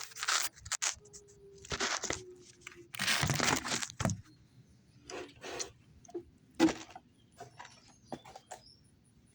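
Handling noise: several bursts of rustling and crunching, the longest lasting about a second near the middle, with weaker scattered clicks afterwards.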